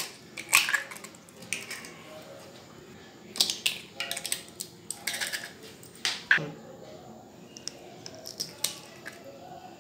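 Eggs being cracked against the rim of a ceramic bowl, one after another: sharp taps and cracks of the shells as they break and are pulled apart, several times over.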